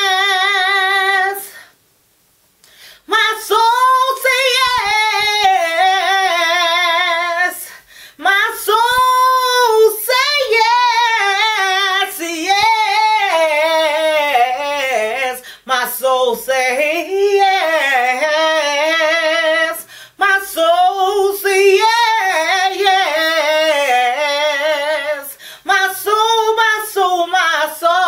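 A woman singing gospel praise solo and unaccompanied: long held notes with a wide vibrato and sliding runs, the words not made out. There is a short break about two seconds in.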